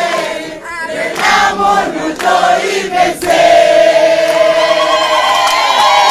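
A crowd singing together in chorus, men's and women's voices; about three seconds in they hold one long note.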